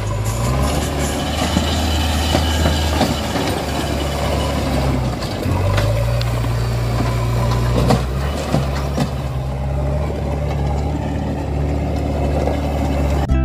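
Low engine rumble of heavy digging machinery, idling and shifting in pitch several times, with scattered clicks and scrapes as a toy excavator's bucket digs into sand.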